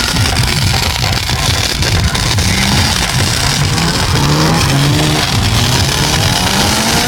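A drift car's engine revving, climbing in pitch several times in the second half, with music playing underneath.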